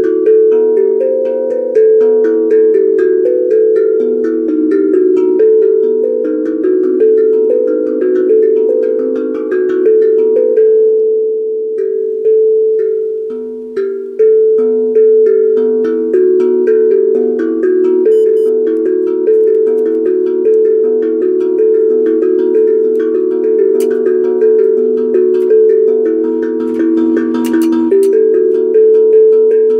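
A tuned percussion instrument played as a melody: a steady run of struck notes, each ringing on into the next, with a brief break about halfway through before the playing picks up again.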